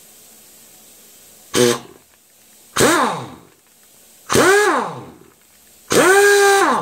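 Restored Ingersoll Rand air impact wrench run free in four short trigger bursts, each longer than the last. Each time, the air motor whines up to speed and then drops in pitch as it spins down after the trigger is released. This is the freshly restored tool being test-run.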